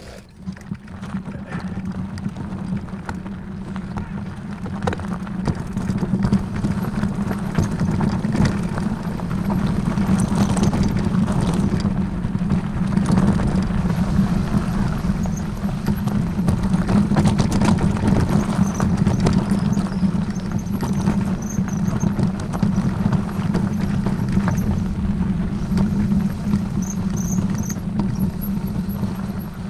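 A vehicle on the move: a steady low rumble with scattered rattles and knocks, building up over the first few seconds and then holding steady.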